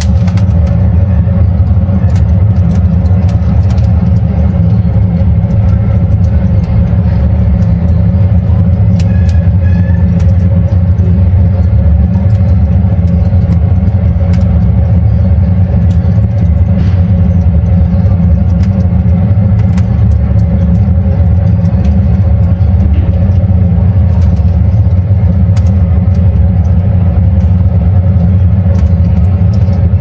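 Charcoal burning in a barbecue grill, crackling with frequent irregular pops and snaps over a loud, steady low rumble.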